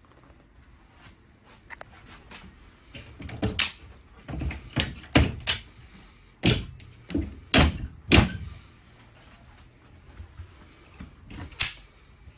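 Small cabinet doors on a boat being opened and shut by hand: a run of knocks, clunks and latch clicks between about three and eight seconds in, and another couple of knocks near the end.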